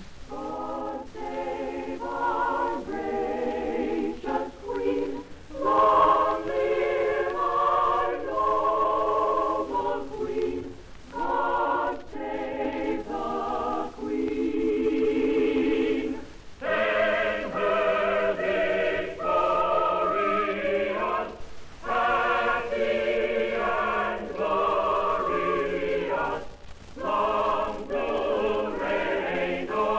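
A choir singing, held notes in phrases separated by short breaths, with a thin, old-recording sound that has little treble.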